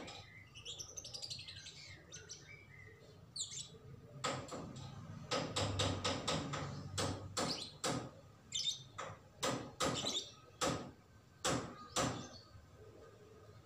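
Caged songbird singing short whistled phrases that slide up and down in pitch. From about four seconds in comes a run of about ten sharp clicking notes, spaced roughly half a second to a second apart.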